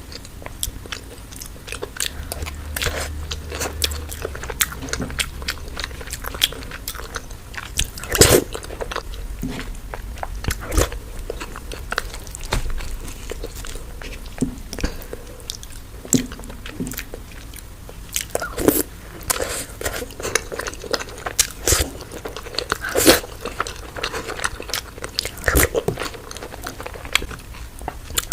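Close-miked eating: chewing and crunching of food, with many irregular crisp clicks and a few louder crunchy bites.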